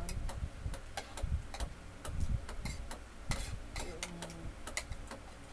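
Metal spoons and forks clinking against plates in irregular light clicks, with eating sounds and a few soft low thumps.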